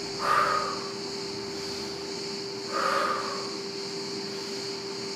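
A woman's forceful exhalations, three of them about two and a half seconds apart, each timed to a knee drive toward the chest in chair-supported mountain climbers. A steady hum runs underneath.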